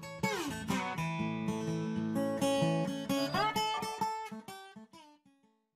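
Background music: acoustic guitar playing, with notes that slide down in pitch about half a second in, fading out near the end.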